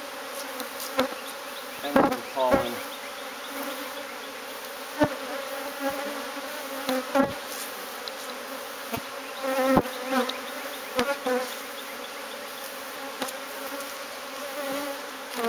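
Honeybee colony buzzing steadily, with individual bees flying close past and their buzz sliding in pitch as they go by, notably about two seconds in and around ten seconds. Occasional short sharp clicks sound over the buzz.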